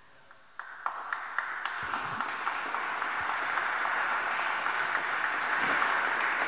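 Audience applauding, starting about half a second in after a moment of near quiet and growing steadily louder.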